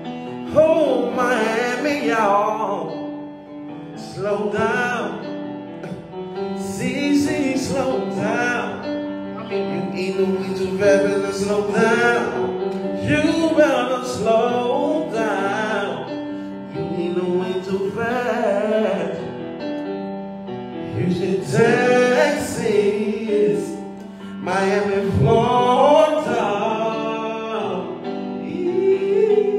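A man singing a slow soul song with piano accompaniment, the voice bending and holding long notes over steady chords.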